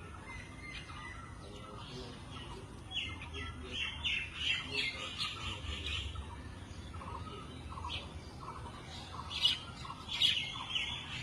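Birds calling in quick series of harsh chattering squawks. The calls grow busier about three seconds in and again near the end.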